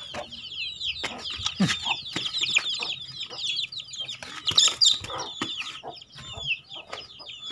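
Chickens calling: a steady run of short, high, falling chirps, several a second, with scattered clicks and taps.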